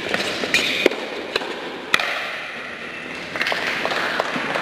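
Tennis ball struck by rackets in a quick volley exchange: three sharp hits about half a second apart in the first two seconds, with shoes squeaking on the indoor hard court.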